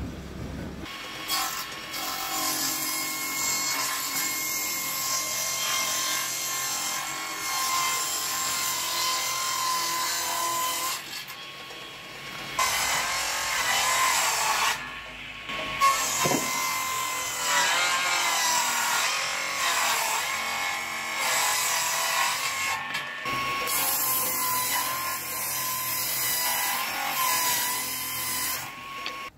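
Circular table saw ripping larch boards lengthwise: the blade's steady whine under the hiss of the cut, dropping away briefly a couple of times between passes.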